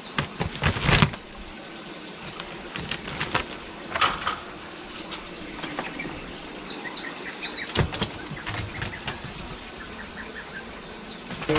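Kittens scrambling and tussling on a plastic tarpaulin and a clay roof tile: rustling of the sheet with sharp knocks and scratches of paws and claws, loudest in the first second and again about four seconds in. A few short high chirps come about seven seconds in.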